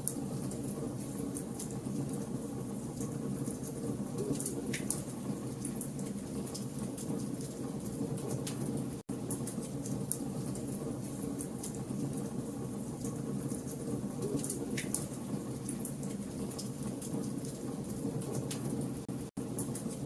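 Campfire of burning logs crackling: a steady low rush with frequent small pops and a few louder snaps. The sound cuts out for an instant twice.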